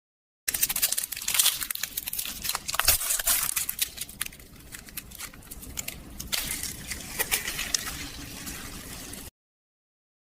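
Burning charcoal crackling and popping: many sharp irregular pops over a soft hiss. About six seconds in the pops thin out and a steadier hiss takes over.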